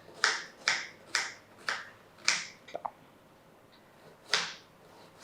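Kitchen knife chopping an onion into small pieces: a run of five sharp chops about two a second, a couple of lighter taps, then after a pause one more chop near the end.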